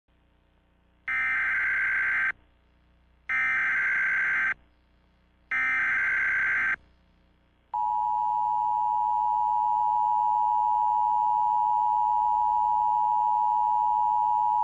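Emergency Alert System broadcast tones: three short bursts of SAME digital data tones, each about a second long with a second's gap between them. About eight seconds in comes the steady two-tone EAS attention signal, a held dual tone.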